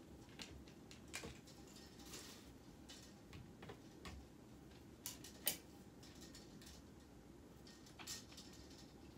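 Faint, scattered clicks and clinks of clothes hangers knocking on a closet rod as clothes are sorted and hung. The sharpest click comes about five and a half seconds in.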